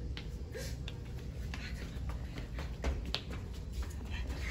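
Footsteps on a tiled hallway floor: irregular light taps and scuffs, over a low steady rumble.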